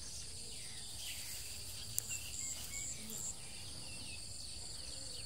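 Insects chirping steadily in a constant high drone. A short series of about four higher chirps comes about two seconds in, along with a single sharp click.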